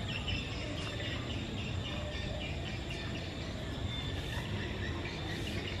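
Outdoor background noise with a steady low rumble and faint, short high chirps scattered throughout.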